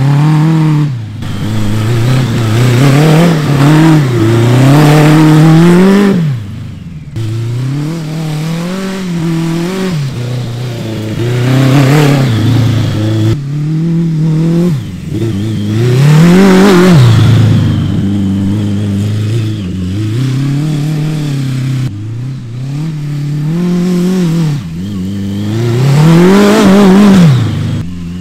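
1000cc trophy kart engine revving hard and falling back again and again, about a dozen times, as the kart is driven in donuts and slides. Its pitch climbs and drops every two to three seconds.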